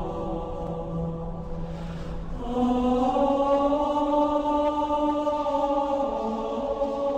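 Slow, chant-like choral music: long held chords, moving to a new chord about two and a half seconds in.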